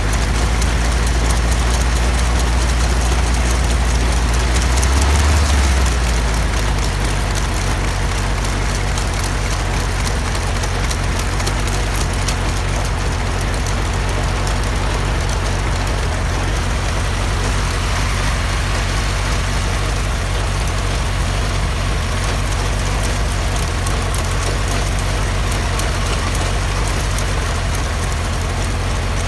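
Homemade helicopter's engine running steadily at idle, swelling briefly about five seconds in, then settling a little quieter.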